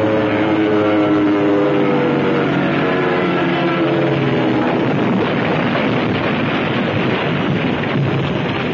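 Film soundtrack of a propeller aircraft's engine in a spinning dive, its note falling steadily in pitch over the first few seconds, then giving way to a rough, noisy rumble.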